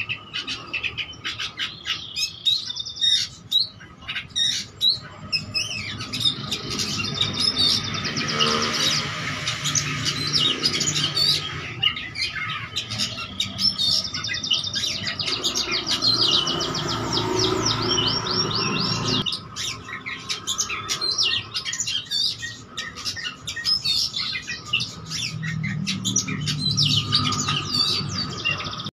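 Oriental magpie-robin (kacer) singing without pause: a varied, loud song of whistled phrases, harsh calls and long runs of rapid trills, the mimicked phrases (isian) that mark a bird in full song.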